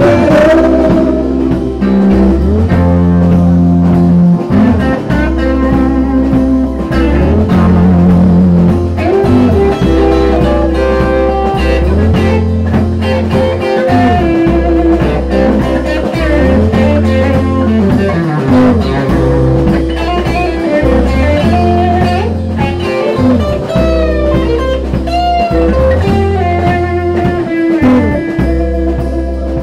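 Small live band playing an instrumental passage: electric guitar and acoustic guitar over drums and a steady low bass line, with bending guitar notes.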